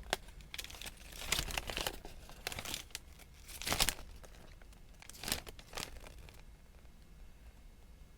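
Paper and packaging being handled, crinkling and rustling in irregular bursts that stop about six seconds in.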